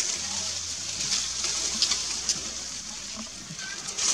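Steady high-pitched outdoor hiss with scattered small clicks and a faint short chirp about three and a half seconds in.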